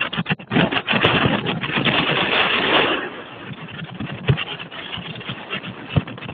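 Storm wind buffeting the microphone over choppy lake water, gusting hardest for the first three seconds and then easing. Two sharp knocks come about four and six seconds in.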